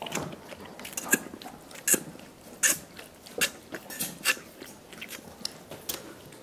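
Dogs gnawing on soup bones: wet, slurping chewing broken by irregular sharp clicks of teeth on bone, a few every second.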